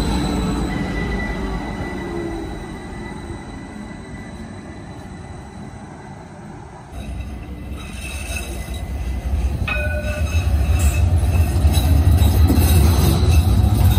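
An FGV S-5000 electric tram pulls away with a steady high whine and fades. Then a second S-5000 tram approaches, its low rumble on the rails growing louder, with a short toot of its horn about 10 seconds in.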